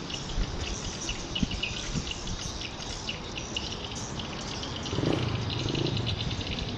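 Edible-nest swiftlets twittering: many short, high chirps overlapping without pause. From about five seconds in a louder low rumble runs under them.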